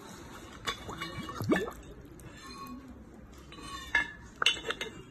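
Jianshui clay teapot being handled: a few sharp clinks and knocks of clay on clay, in two clusters, with a brief rising scrape about a second and a half in.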